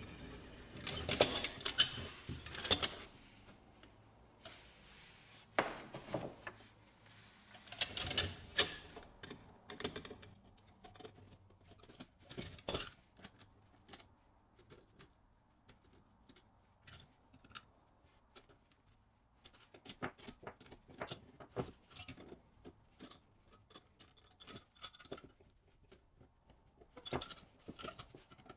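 A pressed-steel Mini Tonka toy cement mixer truck being handled and taken apart by gloved hands: scattered small metallic clicks, knocks and rattles in short clusters, the densest in the first few seconds.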